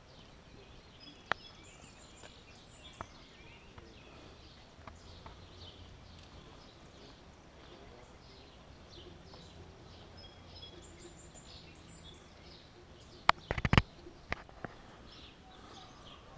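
Birds chirping with many short, repeated calls over a faint outdoor background. A few sharp clicks and knocks come in a brief cluster about thirteen seconds in.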